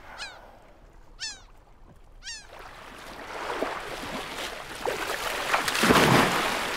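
Three short, falling calls about a second apart. Then a growing wash of water that peaks in a large splash near the end as a humpback whale slaps the surface.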